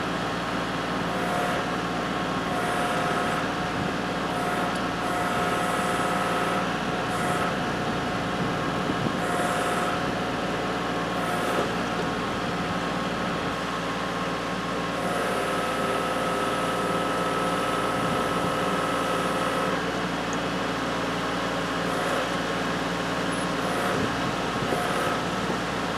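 Kubota L3301 tractor's diesel engine running steadily, with a higher whine that comes and goes several times as the BH77 backhoe's hydraulics work to pull the boat.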